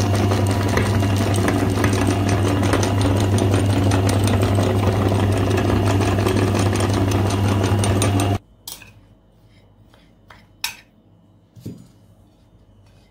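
Electric meat grinder's motor running steadily with a strong low hum as it grinds a hard, crumbly mass through its cutting plate, then switched off abruptly about eight seconds in. A few soft clicks and rustles follow as hands scoop the ground crumbs.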